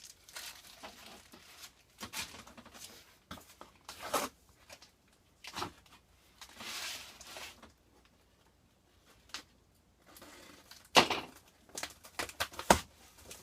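Paper and packaging being handled, rustling and tearing in scattered short bursts, with a couple of sharp knocks near the end.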